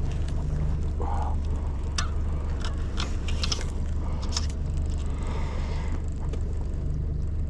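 Steady low hum of a boat's motor idling, with scattered sharp clicks and rattles from fishing gear being handled.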